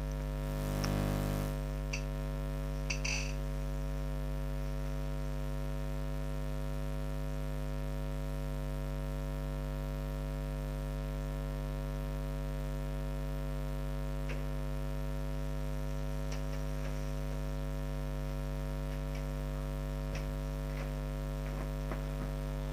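Steady electrical mains hum with a stack of evenly spaced overtones. There is a brief rush of noise about a second in and a few faint clicks.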